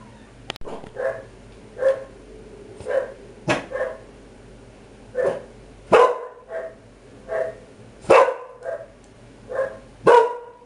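A dog barking in short, separate barks, about one a second, with a few louder ones in the second half.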